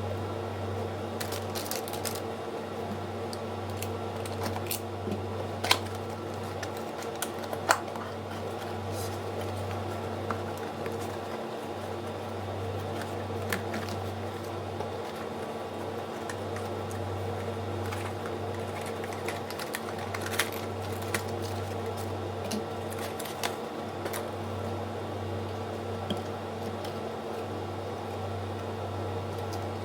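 Scattered light clicks and taps of computer parts being handled, over a steady low hum; two sharper clicks stand out about six and eight seconds in.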